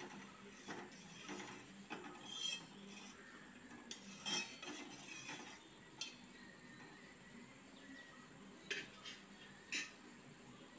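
Steel spoon stirring basmati rice being roasted in ghee in a steel pot, scraping the bottom, with scattered clinks of the spoon against the pot's side.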